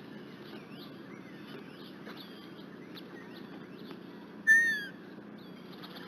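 Wild birds calling outdoors: faint short whistles and chirps throughout over a steady low background noise, with one loud, short, slightly falling whistled call about four and a half seconds in.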